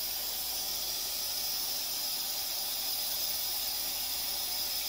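Steady, even high hiss with no distinct events: background noise.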